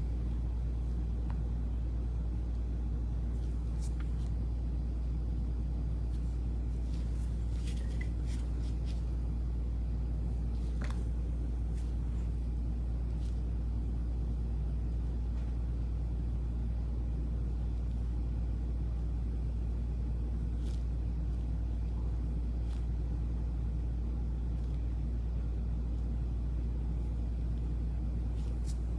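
A steady low hum with a few faint, light ticks scattered through it.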